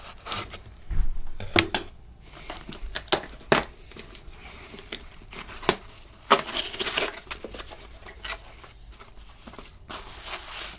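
A parcel being opened by hand: packaging tearing and rustling, with sharp clicks and knocks. A longer stretch of tearing comes about six seconds in.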